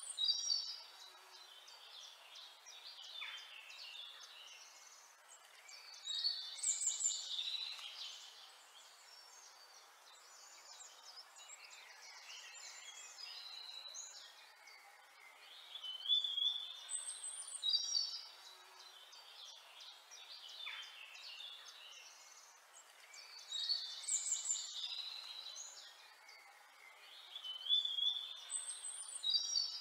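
Songbirds singing, with quick high chirps and warbled phrases. The song comes in louder bursts every eight seconds or so, with softer chirping in between.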